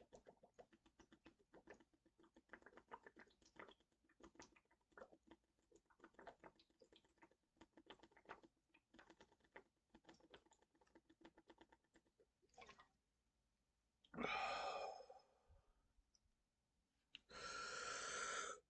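Quick, quiet gulping clicks from orange Fanta being chugged, for about twelve seconds. Then come two short burps, each about a second and a half long, about fourteen and seventeen seconds in.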